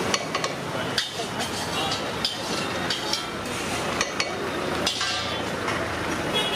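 Steel serving spoon scraping and knocking against a large metal pot while biryani rice is scooped out, with a sharp clink about once a second, over steady street traffic noise.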